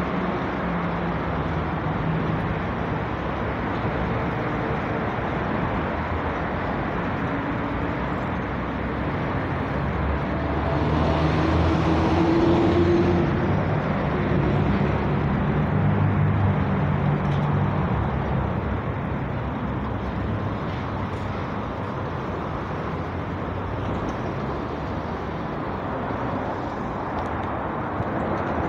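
Metro train running: a steady rumble and low hum that grows louder for several seconds around the middle, with a brief rising motor whine.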